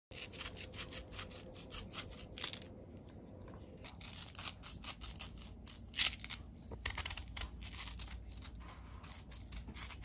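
Kitchen knife slicing through a peeled, firm green Indian mango over a bamboo cutting board: crisp cutting and scraping, with a string of small clicks and taps as the blade and falling wedges meet the board. The loudest tap comes about six seconds in.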